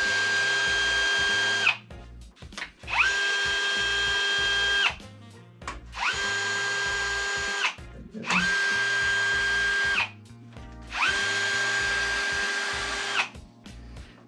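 Cordless drill-driver spinning a socket to run out cam cover bolts: five runs of about two seconds each. Each run winds up to a steady whine and winds down again, with short pauses between.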